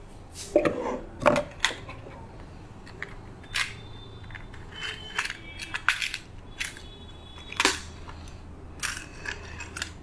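About a dozen irregular sharp clicks and light clinks, some with a brief metallic ring, spread unevenly over the stretch.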